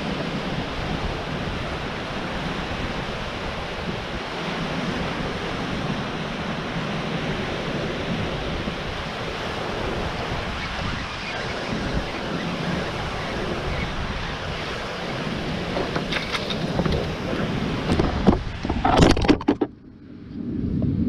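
Surf breaking on a rocky shore with wind on the microphone, steady throughout. Near the end come loud knocks and scraping as the camera is handled and tipped over against the boulders.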